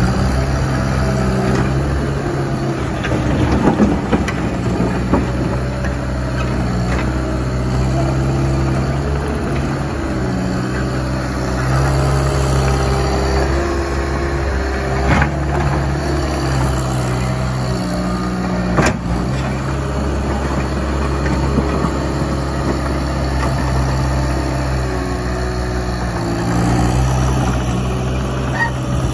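Caterpillar 279C compact track loader's diesel engine running steadily, its pitch stepping up and down as the machine works. A few sharp knocks stand out, one about four seconds in and two more later, as the bucket works through broken pavement.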